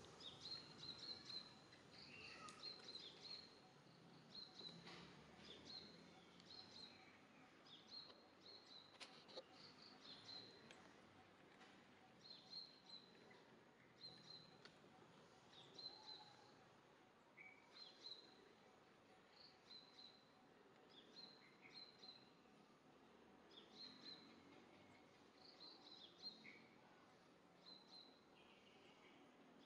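Faint outdoor ambience with a small bird chirping over and over, short high chirps about once a second.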